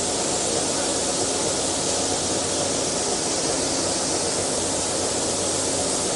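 CNC plasma cutting machine running with a steady hiss and rush and a faint low hum.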